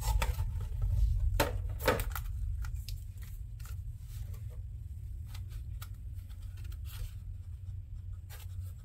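Clear plastic packaging lid being handled and lifted off a foam tray, with several sharp plastic clicks and crinkles in the first two seconds, then scattered soft clicks and rubbing as the packaging and diecast model are handled. A steady low hum runs underneath.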